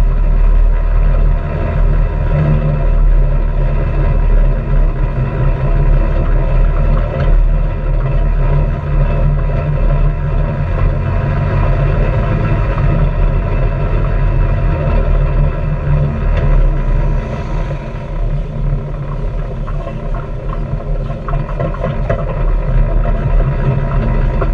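Honda Pioneer 700-4 side-by-side's single-cylinder engine running steadily under way on a dirt trail, with a low rumble and tyre noise on the dirt, easing off somewhat about two-thirds of the way through.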